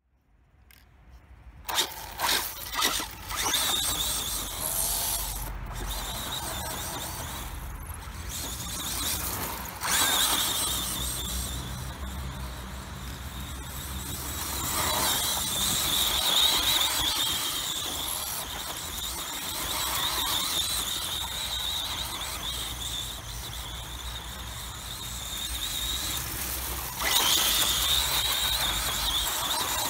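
Kyosho DBX VE 1/10 4WD buggy's Orion Vortex 10 brushless motor and drivetrain whining as the buggy plows through long grass. The sound starts about two seconds in and swells and eases in loudness several times.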